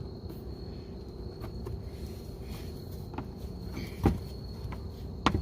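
Plastic splash guard and push clips being handled and pressed into place under a car: a few sharp clicks and knocks, the loudest about four seconds in and a quick pair near the end, over a steady faint high whine and low rumble.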